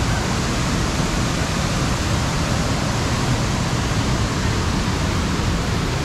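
Fast river rapids and cascades rushing, a loud, steady roar of white water.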